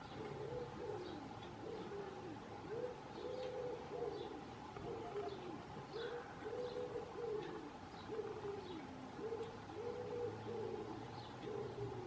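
A pigeon cooing, a steady run of low, soft arched coos, with faint short chirps of small birds above it.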